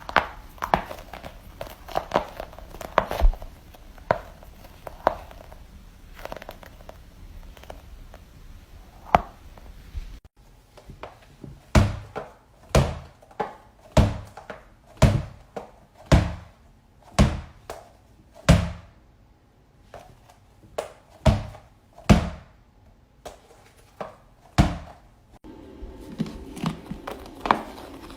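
Toy balls hitting a hard surface in a regular run of sharp thunks, about one a second, through the second half. Before that come lighter, scattered taps and crinkles.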